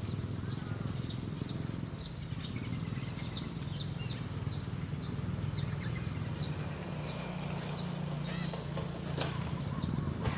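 A small bird calling in a quick, steady series of short, high chirps, about two or three a second, over a steady low background hum.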